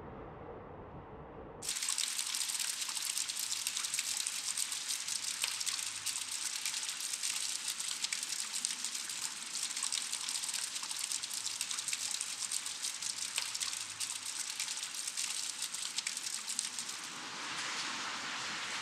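Water running and splashing: a steady rushing hiss dense with small drips and splashes, which starts abruptly about two seconds in after a low hum. Near the end it changes to a softer, duller hiss.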